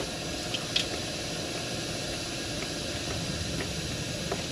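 Steady hiss of compressed air leaking out of a Freightliner M2's rear air suspension through hairline cracks, with the engine off, while the air bag deflates and the suspension settles. A few faint ticks in the first second.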